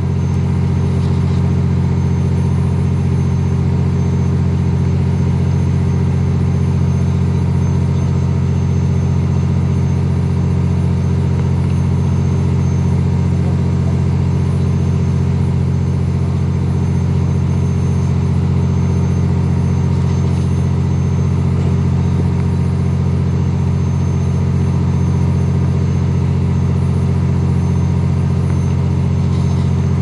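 A fishing boat's engine running steadily with a deep, even hum and a thin high whine above it.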